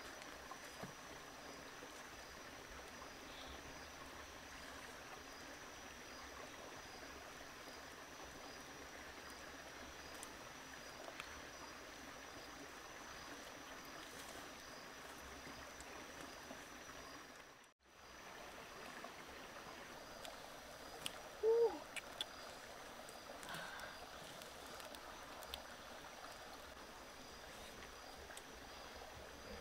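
Steady hiss of running water under a faint, steady high whine, with a few small clicks. The sound cuts out for a moment a little past halfway, and soon after a short warbling call is the loudest thing heard.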